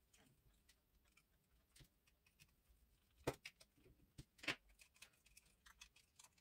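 Near silence broken by a few faint clicks and taps between about three and four and a half seconds in, from small plastic quadcopter parts and its circuit board being handled during disassembly.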